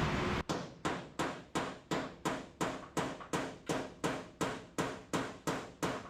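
Hammer blows struck in a steady rhythm, about three a second and evenly spaced, each one sharp and dying away quickly.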